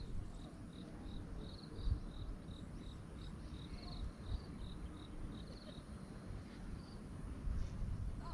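An insect chirping in a quick, even series of short high notes, about three a second, stopping about six seconds in, over a low wind rumble on the microphone.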